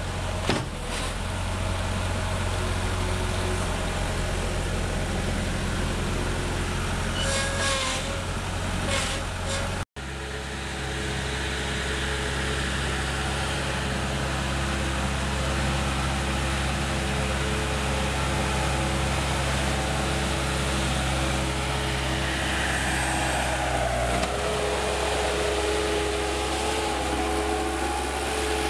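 Bobcat 873 skid-steer loader's diesel engine running steadily as the machine drives, with a brief dropout about ten seconds in and a change in the engine note about twenty-four seconds in.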